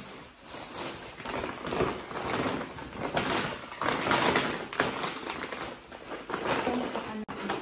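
Packaging and clothing being handled and rummaged through, a rustling in irregular bursts with a few light taps.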